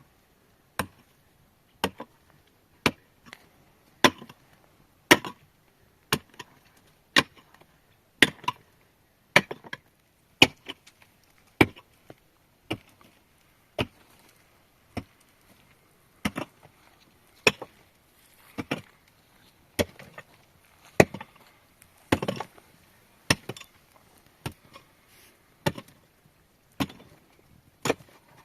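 Steady chopping: a sharp blow about once a second, many followed by a lighter second knock.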